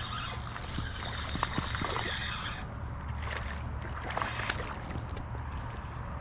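Creek water sloshing and splashing, with several short splashes, as a hooked smallmouth bass is fought at the surface.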